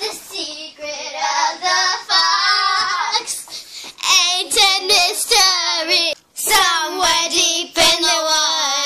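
Girls singing in high voices, holding long wavering notes broken by short pauses, with a brief silence a little past six seconds in.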